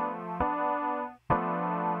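Electric piano playing sustained chords in a progressive rock song, a new chord struck twice, with a brief break in the sound just before the second.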